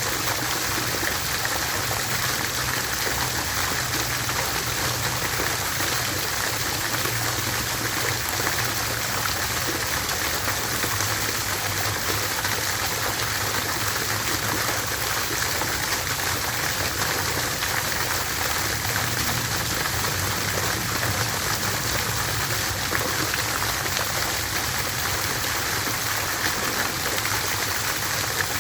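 Water fountain splashing steadily: a continuous, even rush of falling water.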